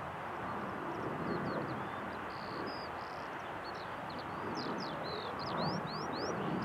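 Distant steady rumble of an Embraer 195's twin GE CF34-10E turbofan engines on its takeoff roll. From about two seconds in, small birds chirp over it in quick, high, mostly rising notes.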